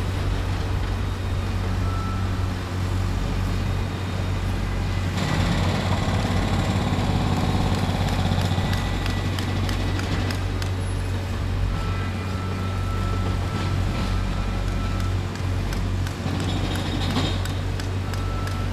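A boom lift's engine running steadily with a low drone, with a louder rush of noise for several seconds about five seconds in.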